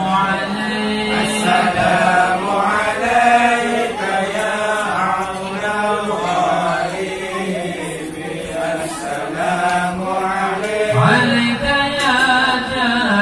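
A group of men chanting Islamic devotional verses together in hadrah style, with sustained, melismatic sung lines and no drumming.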